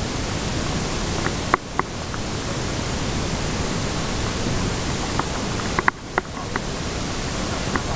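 Steady rushing noise of river water around a raft, heard through a raft-mounted camera, with a few short sharp ticks twice, about a second and a half in and again near six seconds.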